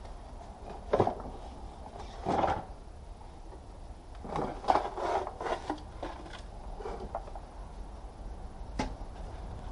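Plastic A/C evaporator housing from a Lexus GS300 being handled and pulled apart: a sharp knock about a second in, a scrape, then a cluster of knocks and rubbing plastic, and one more click near the end.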